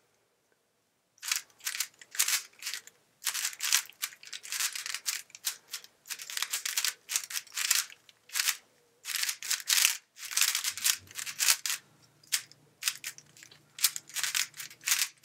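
Moyu AoLong V1 3x3 speedcube being turned fast during a solve: quick runs of sharp plastic clicks and clacks as the layers snap round, in bursts with short pauses between them, starting about a second in.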